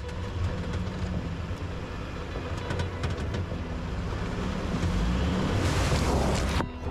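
Truck engine running with a steady low hum as it drives an off-road trail, with scattered clicks and knocks. A louder rushing hiss comes in near the end, then the sound drops away briefly.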